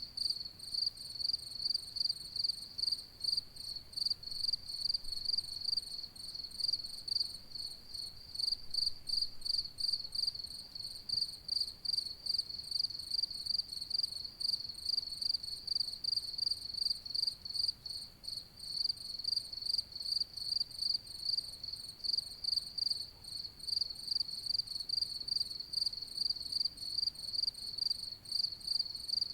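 Cricket chirping, a high-pitched chirp repeated evenly about three times a second without pause.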